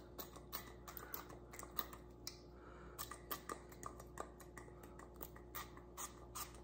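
Hand-pump olive oil spray bottle spritzing over and over: faint, short spritzes with a click, about two or three a second.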